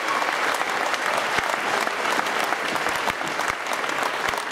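Audience applauding steadily, a dense patter of hand claps welcoming a boxer as he is introduced.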